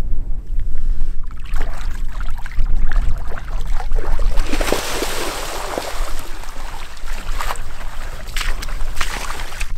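A released sea trout thrashes in shallow river water and swims off, a splash about five seconds in. This is followed near the end by a few sloshing wading steps through the shallows, over a steady low wind rumble on the microphone.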